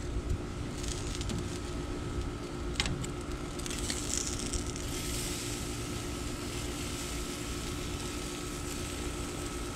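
Steady background hum and hiss at a charcoal grill, with a couple of sharp clicks of metal barbecue tongs as the meat on the grate is turned, the clearest about three seconds in.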